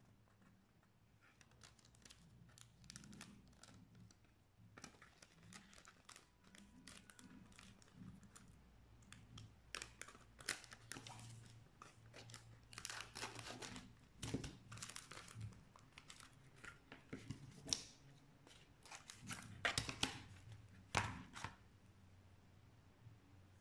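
Clear packing tape pulled off the roll in short rips and pressed onto a cardboard strip bent into a ring, with crinkling and the rustle of the cardboard being handled. The rips come in clusters and are loudest in the second half.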